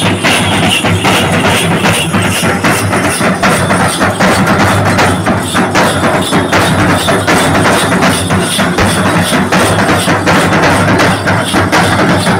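A group of chenda drums, Kerala's cylindrical stick-beaten drums, playing together in a dense, continuous rhythm of sharp strokes.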